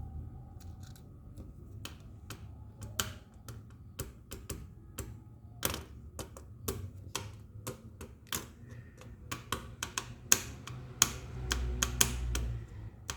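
Irregular sharp clicks and taps of metal on metal, several a second at times, over a faint low hum from a valve radio's audio stage.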